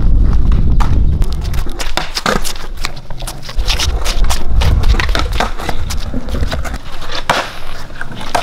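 Skateboard rolling on concrete paving, its wheels clacking over the slab joints in a quick, uneven string of knocks, with a rumble from the wheels underneath.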